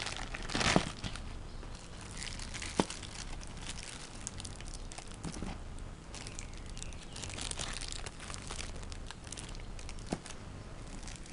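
Thin clear plastic wrapping crinkling and crackling as it is handled and pulled out of a zippered sunglasses case, with a louder rustle about a second in and a few sharp clicks.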